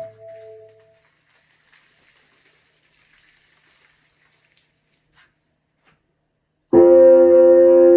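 Test tones driving a home-made Chladni plate: one sustained, many-overtoned tone dies away in the first second, leaving a faint hiss, then near the end a new steady, rich tone starts abruptly.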